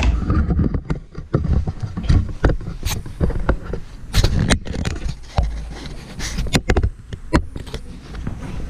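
Handling noise: irregular clicks, knocks and scrapes as hands work at the lines of a plastic fuel tank and the camera is picked up and set back down on the floor, with low rumbling from the camera being handled.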